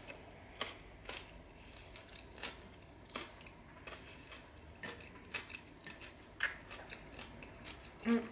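Eating sounds from a salad meal: a metal fork picking at food on a glass plate, and chewing, heard as irregular soft clicks and ticks, one or two a second.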